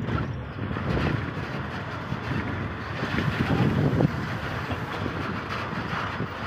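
Road and wind noise of a moving vehicle, a steady low rumble with wind buffeting the microphone, swelling a little around three to four seconds in.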